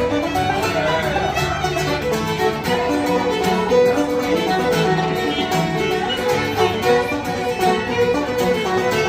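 Irish traditional session music: a fiddle playing a brisk tune with plucked string accompaniment, in quick runs of notes.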